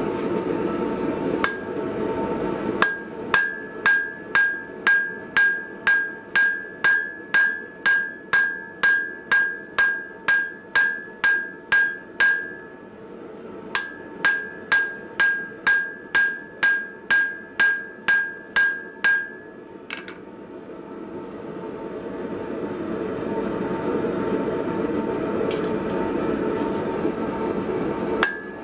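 Hand hammer forging hot coil-spring steel on an anvil: two runs of steady blows, about two a second, each with a bright metallic ring, with a short pause between the runs. A steady rushing noise fills the stretches without blows, at the start and through the last third.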